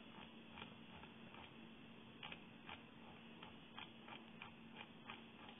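Near silence: room tone with a faint steady hum and a dozen or so faint, irregularly spaced ticks.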